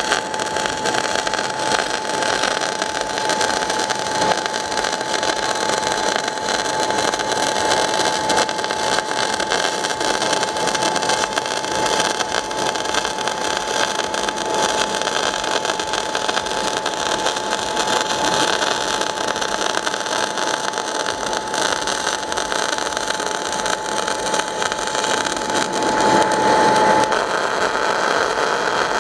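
MIG/MAG welding arc from a 500-amp semiautomatic welder laying a fillet weld: a continuous sizzling crackle with a thin steady whine under it, cutting off at the very end.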